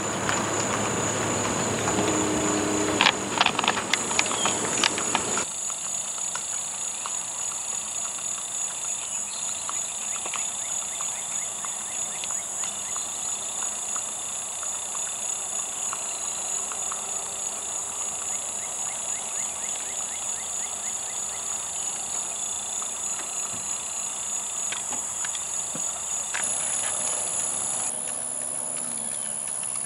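Insects singing in a steady high, even drone. A car passes by in the first five seconds or so. Faint, regular hoofbeats of a gaited mule walking on pavement run under the drone.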